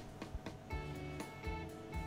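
Background music: a soft melody of steady notes changing about every half second.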